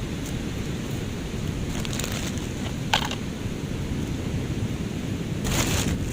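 Wind buffeting the microphone: a steady low rumbling noise, with one sharp click about three seconds in and a short hiss near the end.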